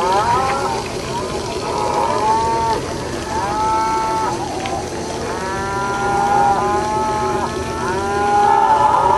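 Repeated whistle blasts from a large-scale model steam locomotive's sound unit. Several notes sound together, each blast swooping up at the start and sagging at the end, over a steady low hum from the running train.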